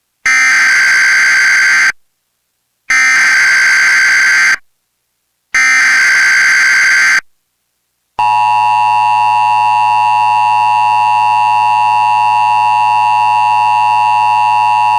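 Emergency Alert System SAME data header: three identical bursts of screeching digital data, each under two seconds with a short pause between, encoding a severe thunderstorm watch. About eight seconds in, the EAS two-tone attention signal (853 and 960 Hz together) starts and holds as a steady, loud tone.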